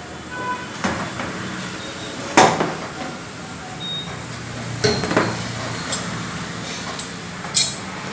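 A handful of sharp metallic knocks and clinks, like hammer taps on steel, at irregular intervals during wheel balancing, the loudest about two and a half seconds in. A low steady hum runs underneath.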